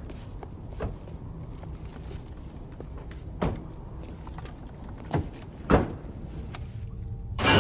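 Military utility vehicle's engine running with a low steady rumble while its doors open and shut with several sharp clunks, with gear rattling. A loud crash breaks in near the end.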